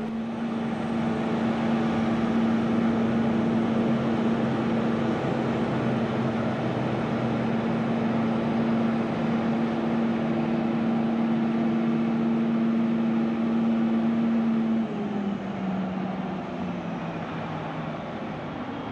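Small camera drone hovering, a steady motor-and-propeller hum; about 15 seconds in the pitch steps down and the hum gets a little quieter.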